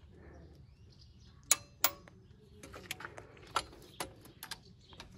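Click-type torque wrench and its ratchet tightening a cylinder head bolt to 30 Nm on a Škoda Felicia 1.3 MPI: two sharp clicks about a second and a half in, then a run of lighter, irregular ratchet ticks.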